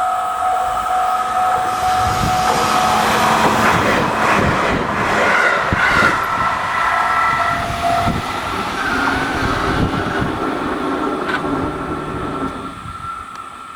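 JR 211 series electric train passing over a level crossing. Its noise builds about two seconds in, with sharp clacks as the wheels cross rail joints, and fades out near the end. The crossing's warning bell keeps ringing as two steady tones, the lower one stopping partway through.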